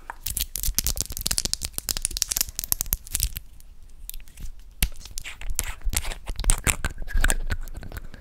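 Fast, crackly scratching and tapping of fingertips on and around a microphone's mesh grille, close up, with a short lull near the middle.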